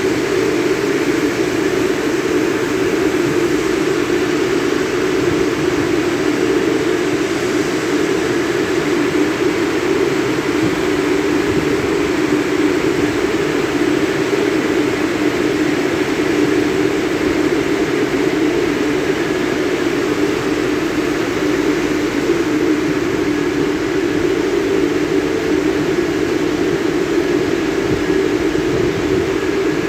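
Christ car wash drying blowers running steadily: a loud, even rush of air over a strong low hum, the drying stage at the end of the wash.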